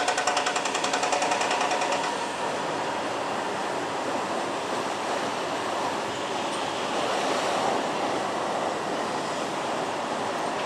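Foundation drilling rig on a steel casing tube: rapid, evenly spaced hammering that dies away about two seconds in, followed by a steady rushing machine noise.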